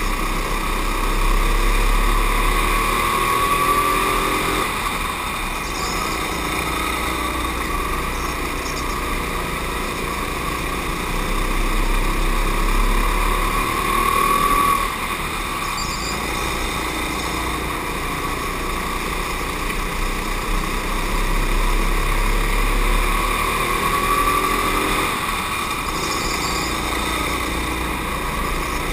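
Go-kart engine running flat out, its pitch climbing on each straight and dropping sharply as the driver lifts for the next corner, three times over.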